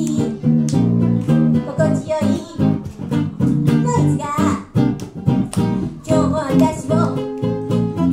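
A woman singing into a microphone over a strummed acoustic guitar and a second guitar, playing a song together.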